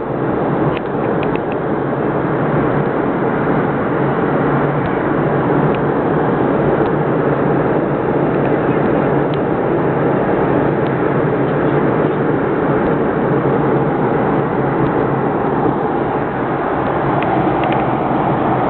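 Airliner cabin noise in flight: the steady drone of the engines and rushing air, heard from inside the cabin at a window seat.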